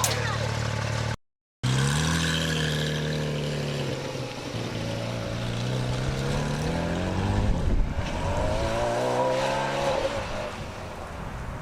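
Porsche race car engine running as the car drives in, its pitch falling, then rising twice as it accelerates. The sound cuts out briefly about a second in.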